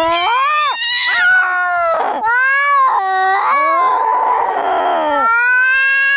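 Domestic cat yowling aggressively in a long, drawn-out caterwaul whose pitch swoops up and down. There is a rougher, harsher stretch about four seconds in.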